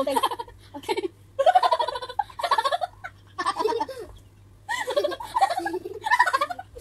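Two women laughing and giggling in several bursts with short pauses between them.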